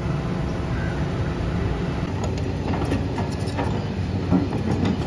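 Heavy construction machinery engine running steadily, a low even drone, with a few faint knocks and clinks.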